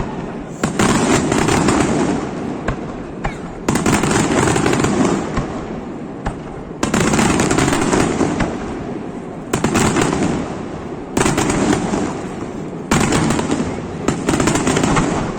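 Aerial fireworks display firing in volleys: about six sudden loud bursts, each followed by a dense crackling rattle that fades over a second or two before the next salvo.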